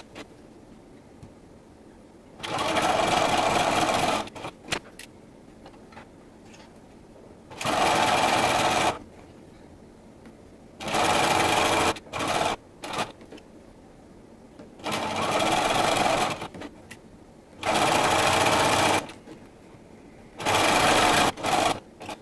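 Bernina sewing machine stitching a neckband onto knit fabric, run in six short spurts of a second or two each with pauses between. A few faint clicks fall in the pauses.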